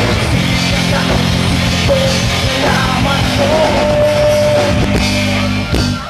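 Live rock band of electric guitars, bass and drums playing loud, with a long held note through the middle. The song ends on a final hit just before the end, and the sound drops off sharply.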